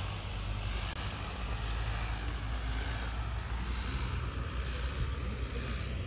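Wind on the microphone: a steady low rumble under a faint even hiss.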